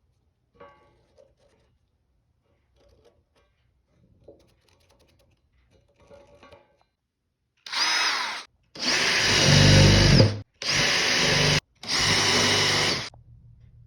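Power drill driving screws in four loud bursts, the first short and the other three about a second or more each. Before them come a few faint knocks of handling.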